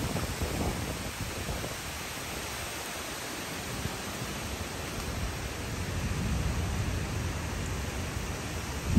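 Strong thunderstorm winds rushing through tall trees: a steady hiss with a gusty low rumble underneath that swells in the second half, breaking into a sudden loud low rumble at the very end.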